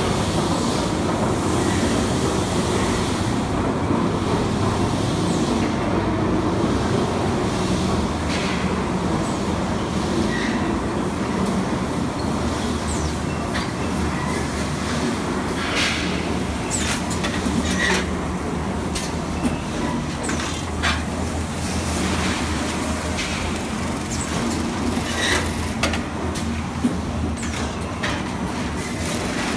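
Fertilizer blending and bagging line machinery running: a steady low hum of conveyors and motors, with scattered short clicks and knocks from the machines.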